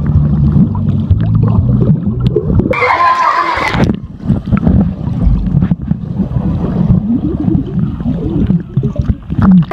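Underwater pool sound heard through a submerged phone: a muffled, heavy rumble of moving water, with bubbling and knocks from a swimmer's strokes. About three seconds in there is a brief higher-pitched sound.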